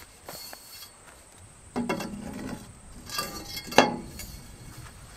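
Metal on metal as a galvanised steel pipe is slid down into a freshly drilled hole in a steel box-section bracket: two stretches of scraping and ringing, the second ending in a sharp clink a little under four seconds in.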